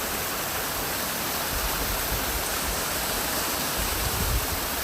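Waterfall rushing steadily, with a couple of brief low rumbles partway through.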